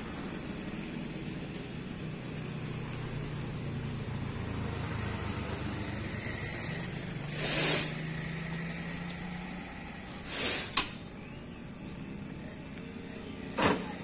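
A motor vehicle engine hums steadily, its tone slowly rising for a few seconds in the middle. Three short, loud hissing bursts come over it, about two to three seconds apart, and the second ends in a sharp click.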